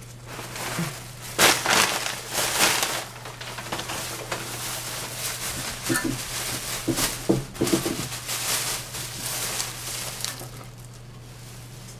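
Thin plastic shopping bag rustling and crinkling as it is shaken open and handled, in irregular bursts, the loudest early on, dying away after about ten seconds; a steady low hum runs underneath.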